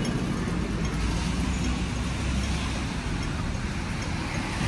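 Steady street traffic noise: a low rumble of road vehicles running past a pedestrian crossing.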